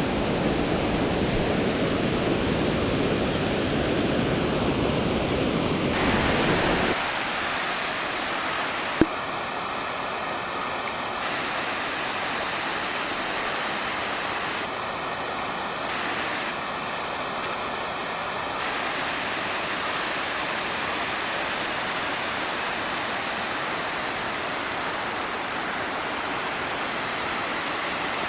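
Hurricane Falls, a large waterfall, rushing steadily. The rush is deep and heavy for the first seven seconds or so, then shifts to a thinner, higher hiss. A single sharp click comes about nine seconds in.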